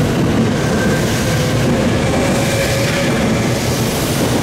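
JR West 323 series electric train accelerating past on departure, its cars rushing by with steady, loud wheel-and-rail noise and a faint whine rising slowly in pitch.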